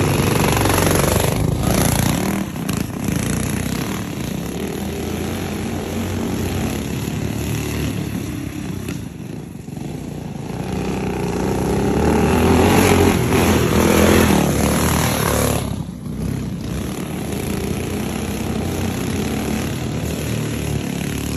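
Small go-kart engines running hard as karts race around a dirt track. The engine sound swells to its loudest about 12 to 14 seconds in as a kart passes close, then drops off abruptly.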